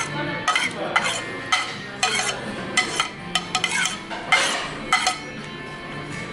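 Metal cutlery clinking and scraping against a plate, a string of sharp clicks and taps coming every half second or so.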